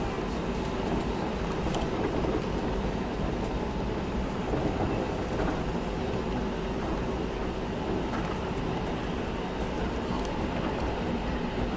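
Airliner cabin noise with the engines running before the takeoff roll: a steady, even noise with a faint constant hum.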